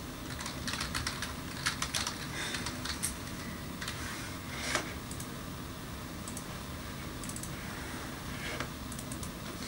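Typing on a computer keyboard: keys clicking in quick runs, thinning out to scattered keystrokes after the first few seconds.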